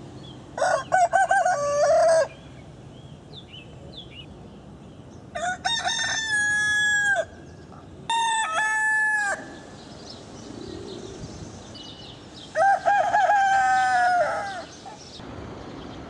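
Roosters crowing: four cock-a-doodle-doo crows of one to two seconds each, a few seconds apart, each ending on a long held note.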